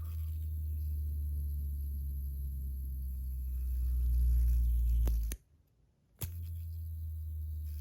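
Bad Butterfly 1.0 fidget spinner with a PEI body and a hybrid bearing spinning, a steady low whir. It stops abruptly about five seconds in and starts again a second later.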